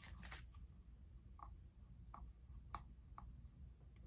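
Near silence: room tone with four faint, short ticks spread over the few seconds.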